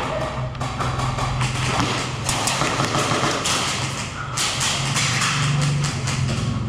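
Irregular taps and knocks, many sharp clicks scattered through the stretch, over a steady low hum.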